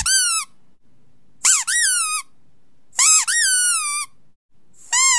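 Rubber squeaky dog toy squeezed four times, about every second and a half. Each squeeze gives a high squeak that rises and then falls in pitch, most of them in two quick parts as the toy is pressed and let go.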